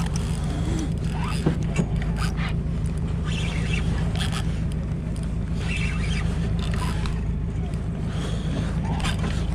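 Fishing boat's engine running with a steady low drone, with occasional scrapes and clicks from a spinning reel being wound.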